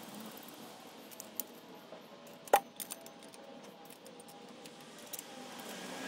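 Small metal clinks as bolts, nuts and the firewood rack's metal brackets and tubes are handled and fitted together. A few light clicks, and one sharp clink about two and a half seconds in that rings briefly.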